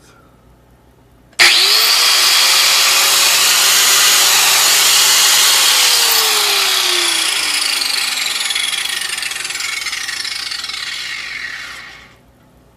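Makita 9557PBX1 4-1/2-inch angle grinder switched on with no load, jumping to full speed about a second in with a rising whine, running steadily, then switched off and spinning down with a falling whine until it stops near the end.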